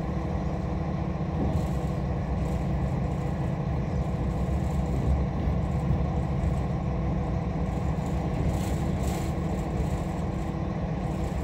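Transport truck's engine idling steadily with a low, even rumble.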